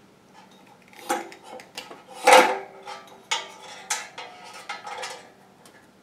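Wire strippers snapping shut on electrical wires as the insulation is stripped off: several sharp metallic clicks and snips, the loudest a little over two seconds in.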